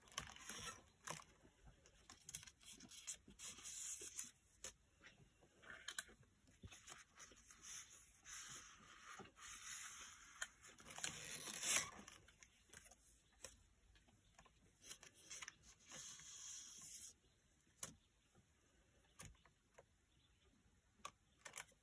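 Faint rustling and sliding of paper and card as slips are pulled out of paper pockets and the pages of a spiral-bound journal are turned, with scattered light taps.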